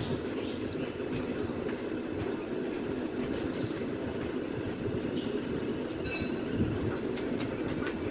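Mistletoebird giving short, high, rising chirps in three quick phrases spaced about two seconds apart, with one other brief call between the last two. A steady low rumble runs underneath.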